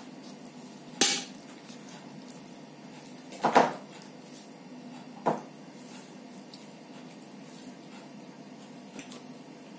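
Sharp clinks of ceramic tableware knocked on the table: one about a second in, a louder double clink about three and a half seconds in, another soon after and a faint one near the end.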